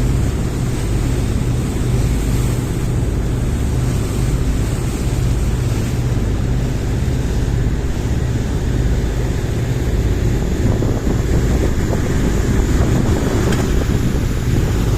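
Motorboat engine running steadily at a constant low hum, with wind buffeting the microphone and the rush of sea water alongside.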